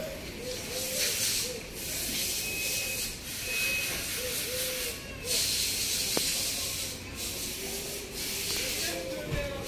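Aerosol tyre sealant-inflator can discharging through its hose into a flat tyre's valve, a hiss that comes in spells of one to two seconds with short breaks between. The can's gas is pushing sealant and pressure into the deflated tyre.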